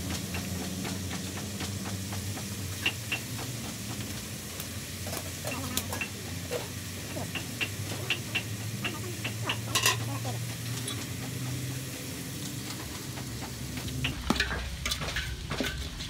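Chunks of meat sizzling and frying in a large aluminium pot, with scattered clicks of a ladle against the pot and a cluster of louder clacks about ten seconds in. Near the end, stirring makes a quick run of knocks and scrapes.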